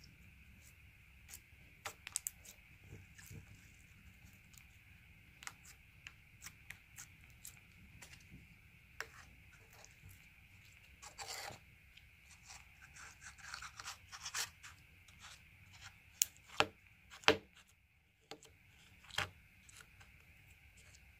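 Clear slime with embedded clay slices being squeezed, pinched and pulled apart by fingers, giving scattered sticky clicks and crackles. A few sharper pops come about three quarters of the way through.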